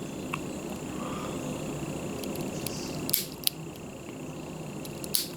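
A few sharp clicks and light knocks, about three seconds in and again near the end, over a faint steady hiss: small hard parts of a camp stove being handled at close range.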